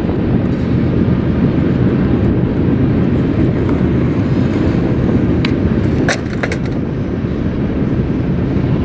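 Skateboard rolling on concrete with a steady low rumble, then a few sharp clacks of the board about five and a half to six and a half seconds in.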